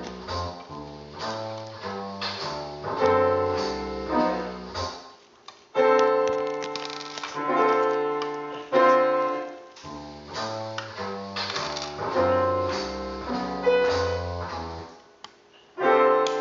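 Background piano music: a melody of struck, fading notes over a bass line, breaking off briefly about five seconds in and again near the end.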